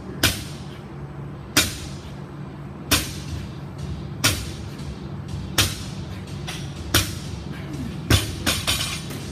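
Loaded barbell of about 255 lb touching down on a rubber gym floor once per deadlift rep: a sharp knock of the weight plates about every 1.3 seconds, seven in all. On the last one the bar is dropped from the hips, and the plates bounce three more times in quick succession.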